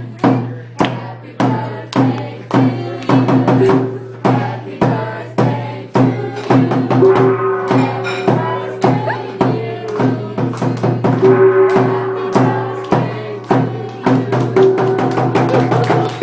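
Restaurant staff singing a birthday chant together over a steady drum beat of a little under two strikes a second.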